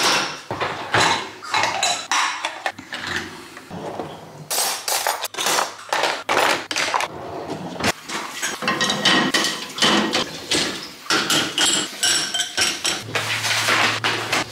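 Dishes and cutlery clinking and clattering in quick irregular knocks as a dishwasher's wire racks are unloaded.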